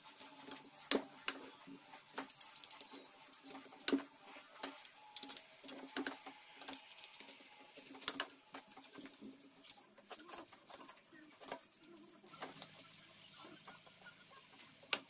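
Irregular metallic clicks and knocks from a socket on a long bar working the nuts on a Yamaha Serow 225 cylinder head as it is taken apart. The sharpest knocks come about one, four and eight seconds in.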